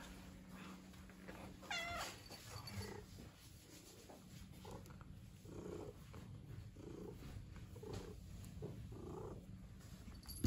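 Domestic cat meowing: one high, wavering call about two seconds in, then a string of short, soft meows and chirps about one a second.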